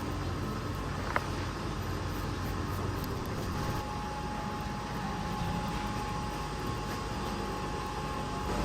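Steady low machine running noise, with a single sharp click about a second in and a thin steady whine joining about three and a half seconds in.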